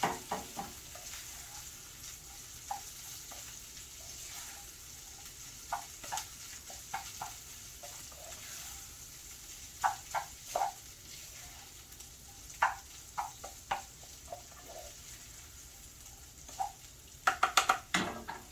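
Ground beef frying in a pan with a steady sizzle, hot enough that it is starting to burn. Scattered clicks and scrapes of a utensil against the pan come through it, with a quick run of them near the end.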